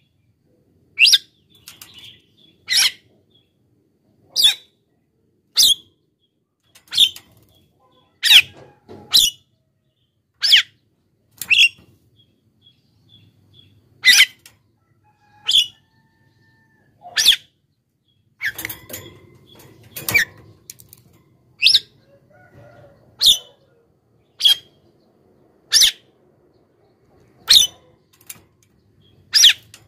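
Javan myna calling: short, sharp, loud calls repeated about once every second or so, with a few longer gaps.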